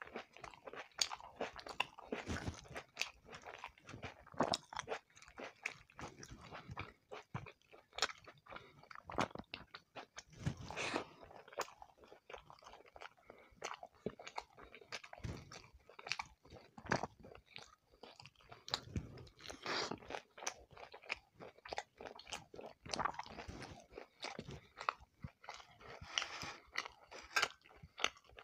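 Close-miked chewing and biting of roti with shrimp curry: a continuous run of irregular clicks and mouth noises.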